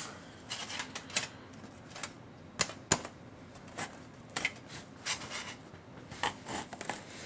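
Thin-gauge sheet-metal body panels clicking and tapping lightly as a hand shifts and lines them up on a tabletop: scattered, irregular ticks, with two sharper clicks about two and a half to three seconds in.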